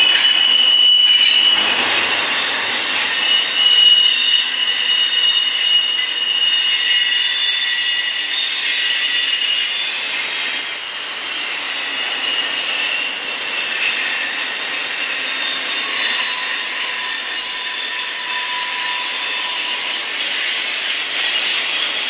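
Double-stack intermodal well cars rolling past on steel rails, with the wheels giving off several high-pitched squeals that come and go and shift in pitch over a steady rolling rumble.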